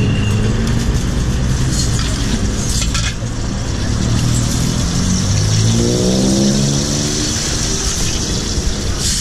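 Street traffic with a road vehicle's engine running, its pitch rising about halfway through as it pulls away. A metal ladle clatters against the wok a couple of seconds in and again near the end.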